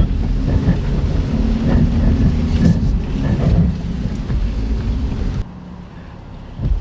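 Suzuki S-Cross Hybrid's 1.5-litre petrol engine running under load as the SUV climbs an off-road slope, with heavy wind rumble on the microphone. The sound drops abruptly to a quieter rumble about five seconds in.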